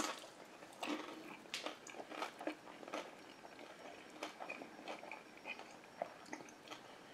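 A person chewing a mouthful of air-fried chicken: soft, irregular mouth clicks spread through the moment.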